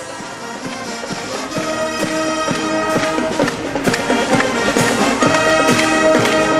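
Brass band playing, held brass notes over a steady beat.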